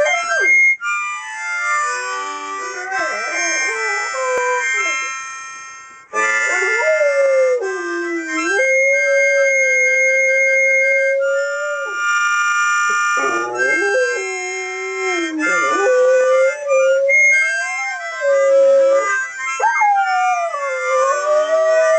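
Labrador retriever howling along to a harmonica: several long howls that slide up and down in pitch, one held steady for a few seconds, over the harmonica's chords.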